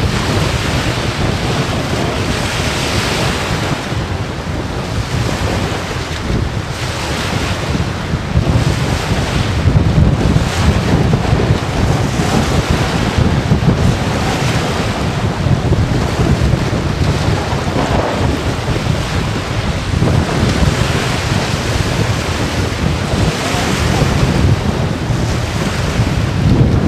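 Strong, gusty thunderstorm wind buffeting the microphone: a loud, continuous rumble whose gusts swell and ease every several seconds.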